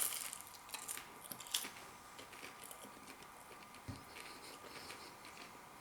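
Faint, crisp clicks and crackles in the first second and a half, then a single soft knock nearly four seconds in, over quiet room tone.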